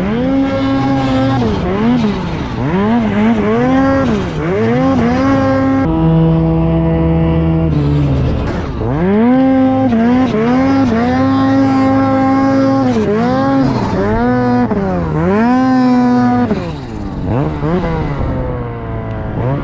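Turbocharged Ski-Doo Gen 5 snowmobile engine revving up and falling back again and again, with the turbo whistling over it. From about six to eight seconds in it holds a steady pitch before the revving resumes.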